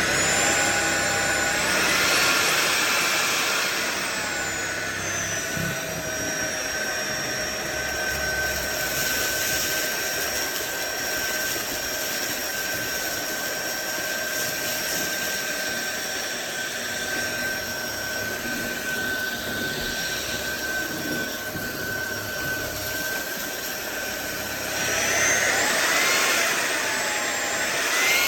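Cordless stick vacuum cleaner's motor spinning up with a rising high whine, then settling to a steady whine a few seconds in. Near the end the pitch briefly rises and falls before steadying again.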